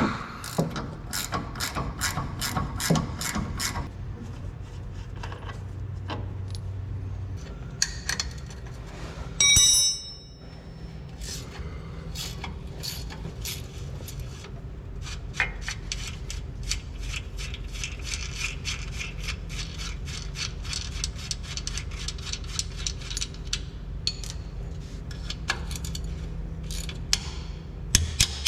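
Ratchet wrench clicking in quick runs while the bolts of a rear shock absorber are undone, with a brief loud mechanical burst about nine seconds in.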